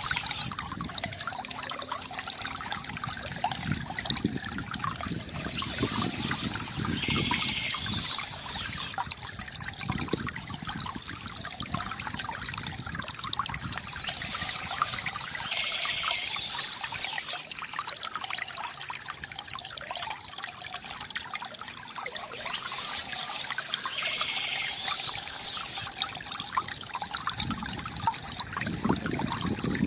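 Small stream trickling and gurgling steadily over stones, with a brighter splashing stretch recurring about every eight to nine seconds.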